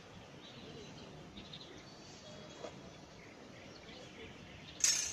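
Outdoor background noise with faint, scattered bird chirps, and one sharp crack near the end.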